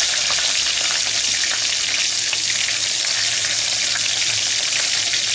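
Garlic cloves frying in hot oil with fennel seeds and curry leaves: a steady sizzle with fine crackling.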